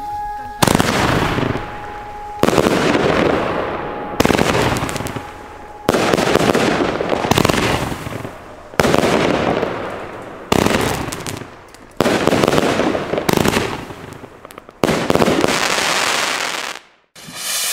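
Star Trade 'Apokalyptische Reiter' firework battery firing in a steady sequence: about ten shots, roughly one every one and a half to two seconds. Each is a sudden bang followed by a fading hiss and crackle as the comets and glitter stars burn out.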